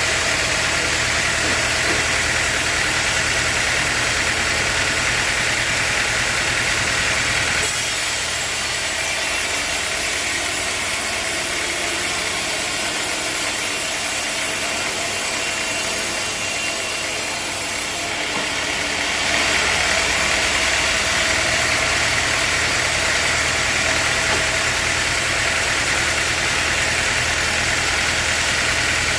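Sawmill machinery running steadily: a motor hum with a hiss higher up. It drops a little about eight seconds in and comes back up about nineteen seconds in.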